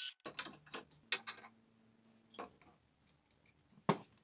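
The last instant of a drill press cutting steel with a step drill bit, then quiet clicks and light taps of a bent square steel tube and a steel combination square being handled on a wooden bench, with one sharper tap near the end.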